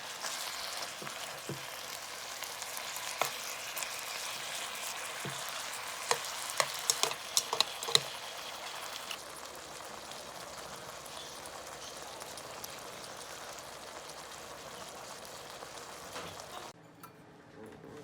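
Food sizzling steadily as it fries in a pan, with a handful of sharp clicks about six to eight seconds in. The sizzle cuts off suddenly near the end.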